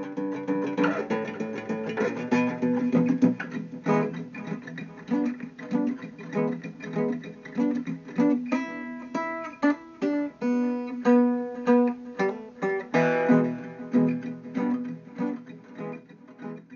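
Acoustic guitar music, plucked and strummed, fading out near the end.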